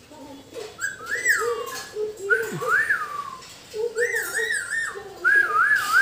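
Whistling in four short phrases. Each phrase jumps up to a high note and slides back down, and the last two waver in quick trills.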